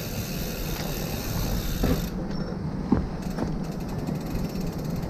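Bicycle freewheel ticking rapidly as the bike coasts over the trail, with two short knocks near the middle.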